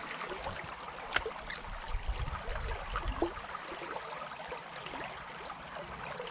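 Small stream running, a steady babbling of water, with a few light clicks over it, the sharpest about a second in, and a brief low rumble around two seconds in.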